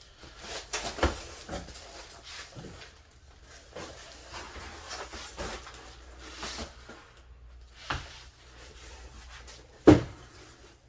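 Handling sounds of unpacking a tower fan's parts and packaging: scattered rustles and light knocks, with one sharp knock near the end.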